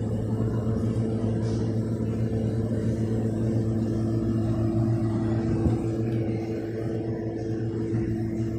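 2019 Whirlpool side-by-side refrigerator running with a steady low hum.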